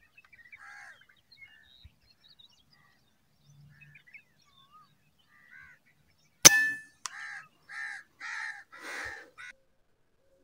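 Faint bird chirps, then a single sharp crack with a short ring about six and a half seconds in. A quick run of five harsh crow caws follows.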